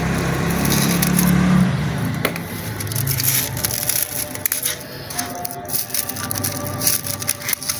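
Scissors snipping plastic ties, and dry, hardened khus (vetiver) grass crackling and crunching as an old cooler pad is pulled apart on its chicken-wire frame. A low hum runs under the first couple of seconds.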